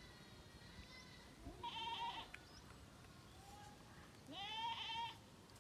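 A goat bleating twice, about two and a half seconds apart, each call short and quavering.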